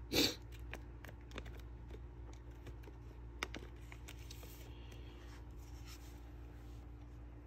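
Quiet handling noise of trading cards being picked up and moved: scattered soft clicks, scrapes and rustles, with a short rustle just after the start and a sharper tick about three and a half seconds in, over a steady low hum.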